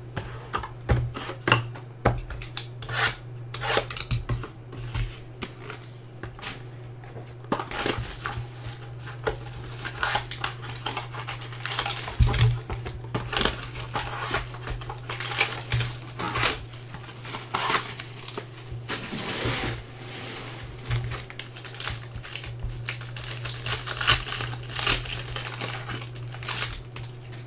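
Hands opening trading-card packaging: a steady run of irregular crinkling and crackling as a box is opened and a foil pack wrapper is torn and peeled back, over a steady low hum.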